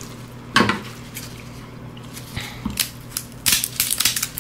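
Crab claw shell being cracked and clipped with a metal kitchen tool. A sharp crack comes about half a second in, a couple more near the middle, then a quick run of crunching clicks in the last second.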